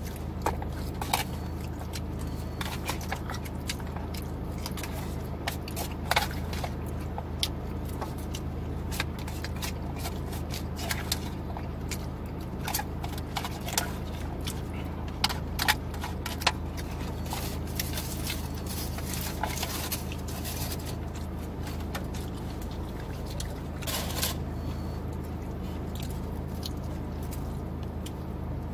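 Eating sounds, chewing with scattered short clicks and scrapes from the takeout bowl and utensil, over a steady low hum from the car running.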